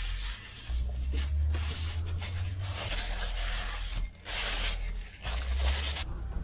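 Aerosol brake cleaner sprayed in about five short hissing blasts, each starting and stopping sharply, with a low rumble underneath.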